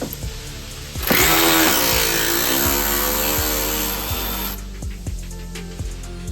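A power tool runs for about three and a half seconds, starting about a second in, its pitch dipping partway through. Background music with a steady beat plays throughout.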